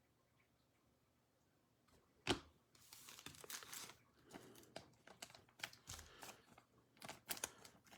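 Faint crinkling and rustling of trading cards and their pack wrapper being handled, with one sharp click about two seconds in and scattered small crackles after it.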